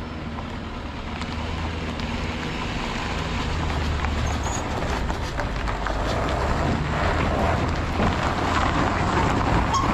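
Heavy land-clearing machine's diesel engine running steadily, gradually growing a little louder.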